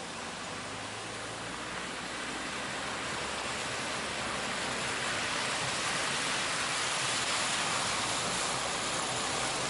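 Steady rush of fast-flowing floodwater, growing gradually louder.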